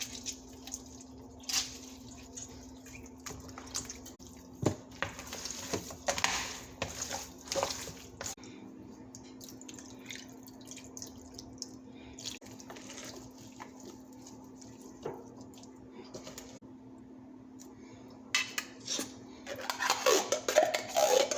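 Kitchen work sounds: dishes, pans and utensils clinking and knocking on and off, busiest near the end, over a steady low hum.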